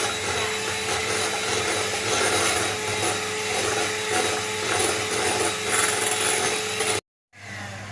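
Electric mixer running steadily, its beaters whipping cream in a bowl toward stiff peaks, with a steady motor tone under the churning. It stops abruptly near the end, leaving a quieter hum.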